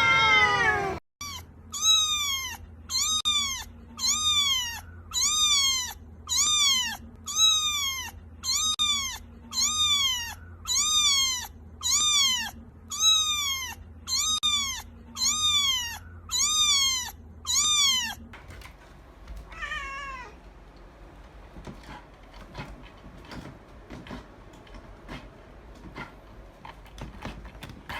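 A cat meowing over and over in short, identical calls that rise and then fall in pitch, about one a second, roughly eighteen times, then one fainter meow followed by quiet clicking and rustling.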